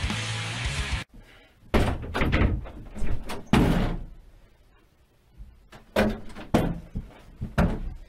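Background music cuts off about a second in, followed by a series of thumps and knocks from a white panelled interior door being opened and bumped: a quick cluster of knocks, a pause, then three more.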